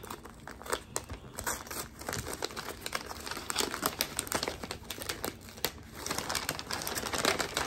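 Gift wrapping paper crinkling and rustling in irregular crackles as hands peel it open off a present.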